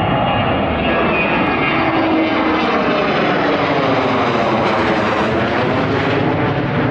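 Airliner on landing approach passing low overhead: a loud, steady rush of engine noise whose tone sweeps down and back up as it goes over.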